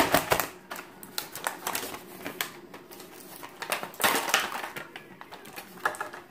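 Clear plastic packaging crinkling and rustling as it is handled, with irregular sharp clicks, and a denser burst of crackling about four seconds in.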